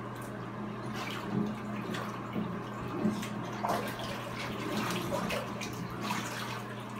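Bathwater sloshing and splashing in a tub as a toddler moves about in it, with a steady low hum underneath.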